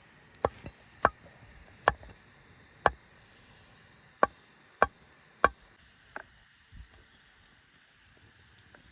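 A series of about nine sharp knocks, roughly one a second and unevenly spaced, growing weaker after about six seconds.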